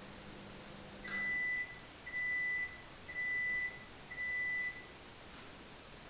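Electronic beeper sounding four evenly spaced high beeps, about one a second, each about half a second long. A faint low hum stops as the first beep sounds.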